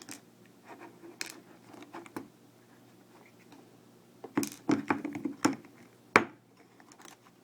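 Small metal clicks and scrapes of a Medeco M3 lock cylinder's parts being handled during disassembly: a few light clicks at first, a busier run of clicking and scraping past the middle, then one sharp click.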